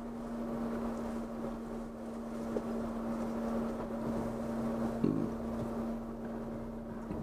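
Off-road vehicle's engine running at a steady low speed as it crawls a rough dirt trail, a constant hum heard from inside the vehicle, with a brief knock about five seconds in.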